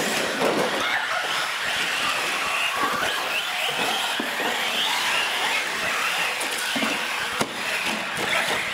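A pack of radio-controlled UTV trucks racing on a concrete floor, their motors whining and wavering up and down in pitch as they speed up and slow down, with one sharp knock about seven seconds in.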